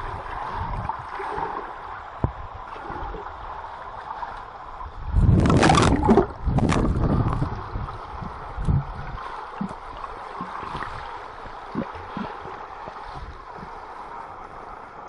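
Pool water heard underwater through a waterproof camera: muffled gurgling and bubbling as a child swims toward it, with a louder rushing churn of kicks and bubbles about five to seven seconds in.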